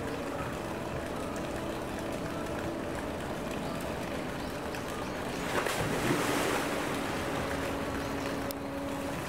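Steady rushing and sloshing of water in a polar bear's pool, with one louder splash about five and a half seconds in that lasts a second or so.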